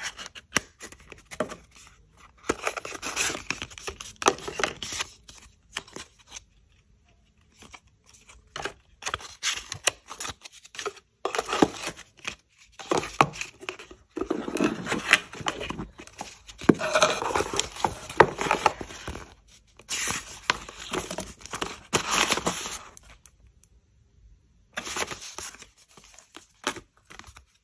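Paper and card packaging handled by hand: a paper envelope, cards and white cardboard boxes rustling, crinkling and sliding in irregular bursts, with a few brief pauses.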